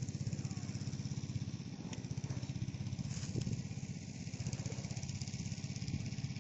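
A small engine running steadily with a fast, even putter that starts and stops abruptly.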